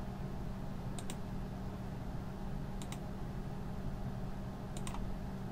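Computer mouse clicking three times, about two seconds apart, each click a quick double tick, over a steady low hum.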